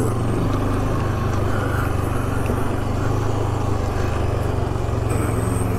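2008 Yamaha Grizzly 450 ATV's single-cylinder four-stroke engine running steadily at an even pitch, crawling in low range over a rocky trail.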